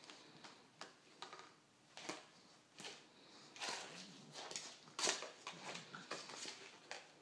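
A pug playing with a flower pot: a string of irregular short scrapes and knocks, the loudest about five seconds in.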